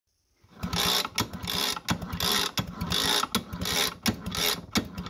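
Small air-cooled single-cylinder engine of an East German military generator being cranked over by hand, a rattling mechanical stroke repeating about every 0.7 s, starting about half a second in. The engine is being turned over to test the magneto ignition for spark at a plug grounded on the cylinder head, after the breaker points were cleaned and regapped.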